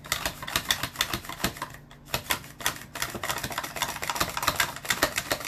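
A carrot being pushed back and forth across a handheld plastic mandoline slicer, making quick rasping clicks several times a second, with a short pause about two seconds in.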